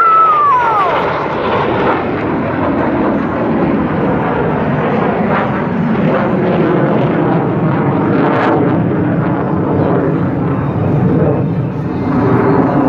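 Aircraft flying past: loud, steady engine noise, with a tone that falls steeply in pitch during the first second as it goes by.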